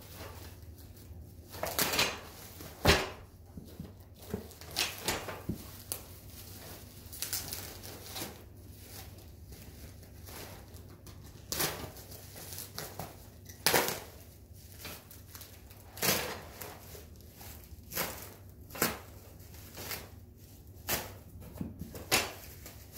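Plastic wrapping around a bundle of swords being cut open with a razor knife and pulled apart: irregular crinkling rustles and scrapes, with a few sharp clicks.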